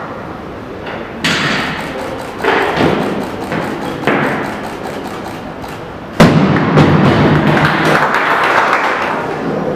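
Loaded barbell with rubber bumper plates dropped onto a wooden lifting platform, a single heavy thud about six seconds in that is the loudest sound. Clapping and crowd noise start about a second in and continue after the drop.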